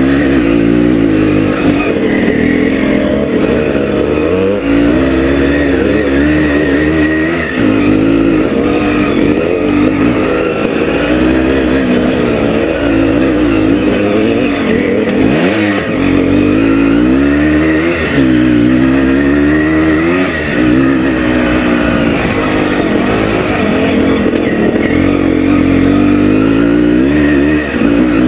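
Can-Am 370 two-stroke single-cylinder enduro motorcycle, heard close from on the bike, running hard under load. Its revs climb and fall over and over as the throttle is worked and gears change, with several sudden drops in pitch.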